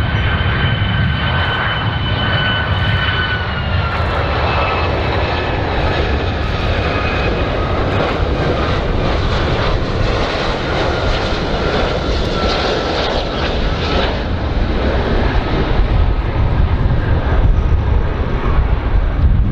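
Boeing 757-200 airliner on final approach, its twin jet engines running at low power: a steady high whine over a deep rumble. The whine drops slightly in pitch about three and a half seconds in, and the rumble grows stronger near the end as the plane comes in.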